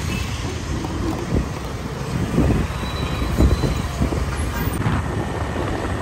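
Wind rushing over the microphone mixed with the steady noise of city road traffic, heard from the back of a moving motorbike.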